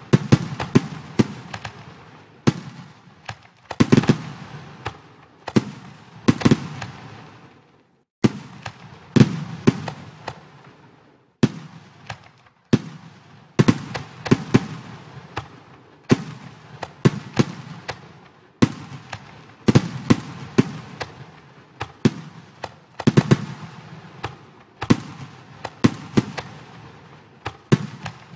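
Fireworks sound effects from a computer fireworks display program: a steady run of sharp bangs, one every second or two, each followed by a fading crackle.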